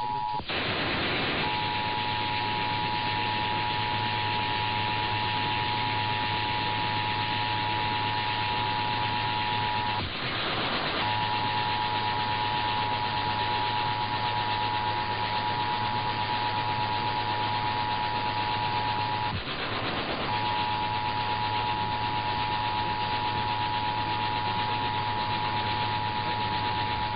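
Emergency Alert System two-tone attention signal, a steady dual tone near 853 and 960 Hz, heard over heavy radio static and low hum. The tone breaks off for about a second of static alone, about a second in, about ten seconds in and again around twenty seconds in.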